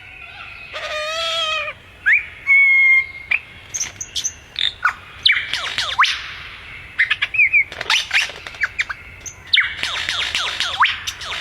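Bird calls in a varied run: a wavering, nasal squawk about a second in, short steady whistles, then many quick downward-sweeping chirps that crowd together in the second half.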